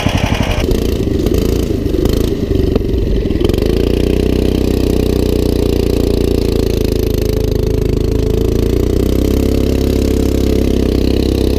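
Small single-cylinder go-kart engine running steadily at an even speed.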